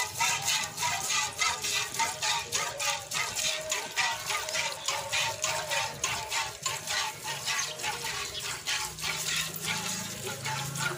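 Water buffalo being milked by hand: milk squirting into a steel pail in quick, even, rhythmic spurts, several a second. Background music plays underneath.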